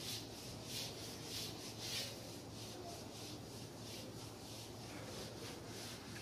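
Whiteboard eraser scrubbed back and forth across a whiteboard, a soft rubbing stroke repeating about every half second.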